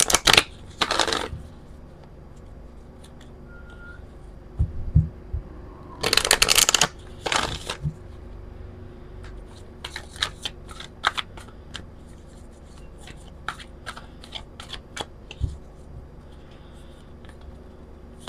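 A deck of oracle cards being shuffled by hand. There are two long riffling bursts, one at the start and one about six seconds in, then a string of quick, light card clicks as the cards are handled.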